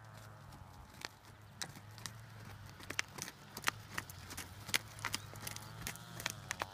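A horse trotting on a dirt arena: irregular sharp hoof clicks and beats, thickest through the middle and later part as it passes close, over a steady low hum.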